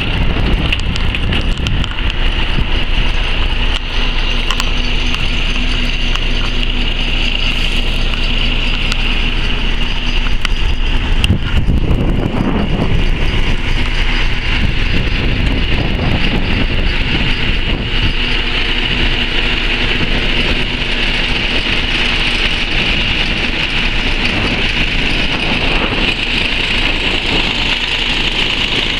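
Kharkiv T-150K tractor's diesel engine running steadily, briefly louder about twelve seconds in.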